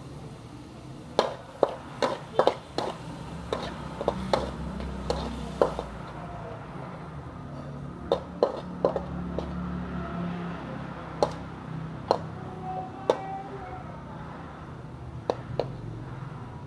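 Metal spatula knocking and scraping against a steel wok while stir-frying squid: irregular sharp clinks, in a quick run during the first few seconds and scattered after that.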